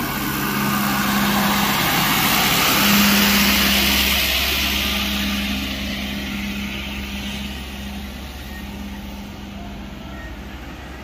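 Motor vehicle engine and road noise, growing louder to a peak about three seconds in, then slowly fading.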